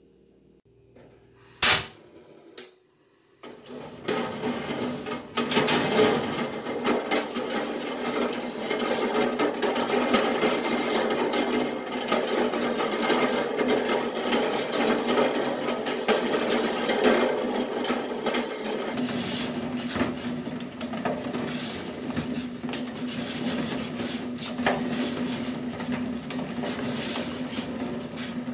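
A spoon stirring eggs in a stainless steel pot of water on a gas stove: continuous scraping and small knocks of spoon and eggshells against the pot, over a steady noise of the burner and the heating water. A sharp click comes just before this, about two seconds in.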